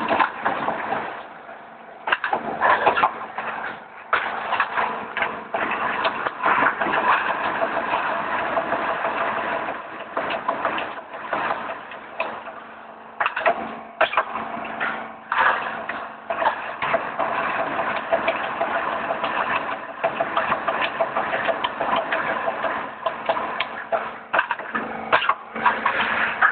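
Roll forming machine for hollow metal profiles running: a steady machine hum under many irregular sharp knocks and clicks.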